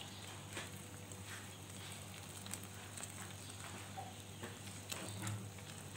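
Shrimp and sponge gourd (patola) soup bubbling gently in a wok after hot water was poured in: a faint, steady simmer with a few small pops, over a low hum.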